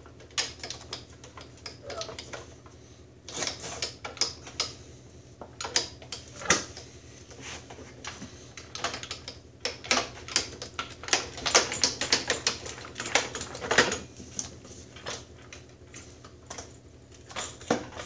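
Irregular metal clicks and clacks as the drive-shaft assembly of a Snapper rear-engine riding mower is worked by hand, with the shaft, disc and fittings knocking together. The clicks come thickest around the middle of the stretch.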